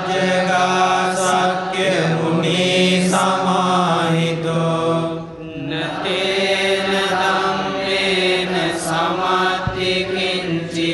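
Buddhist pirith chanting in Pali: long, drawn-out chanted phrases with short breaks between them, about two seconds in and again about five and a half seconds in.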